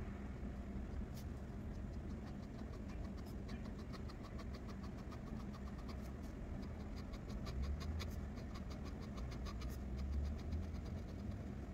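Fine-tipped Pigma Micron pen hatching on drawing paper: quick short strokes ticking against the pad, several a second, over a steady low hum.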